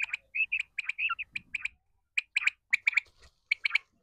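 A quail calling: short, sharp chirping notes in quick groups of two or three, repeated again and again.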